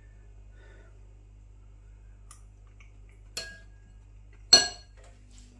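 Metal spoon clinking against a bowl: a light tap about three and a half seconds in, then a sharp ringing clink a second later, over a faint low hum.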